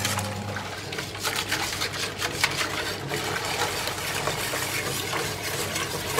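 Wire balloon whisk beating a thin egg-yolk, sugar and milk mixture in a stainless-steel bowl: the liquid sloshes while the tines click and scrape quickly and unevenly against the steel.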